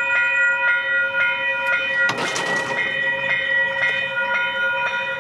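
Western-Cullen-Hayes electronic level crossing bells ringing in a steady, rapid, evenly repeating ding: the crossing warning is active for an approaching train, with bells sounding instead of the klaxon alarms. A brief rush of noise comes about two seconds in.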